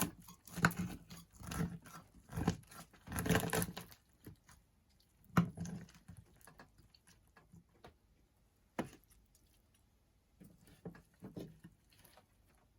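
Irregular clattering, scraping and knocking of cooking utensils and dishes being handled, busiest in the first few seconds, then a few scattered knocks.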